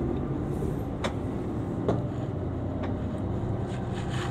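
Mercedes-Benz Actros truck engine running steadily at low speed, heard from inside the cab, with a few sharp clicks over it.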